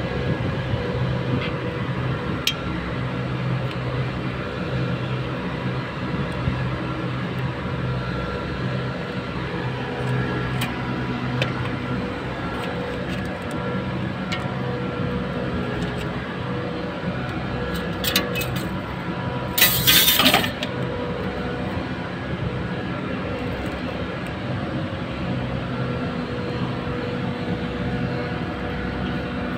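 Steady hum of running machinery with a fixed pitch. A few sharp clicks are heard, and a loud burst of hiss lasting about a second comes about two-thirds of the way through.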